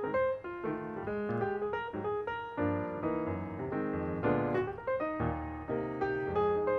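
Background piano music: a melody of separate, evenly paced notes over lower chords.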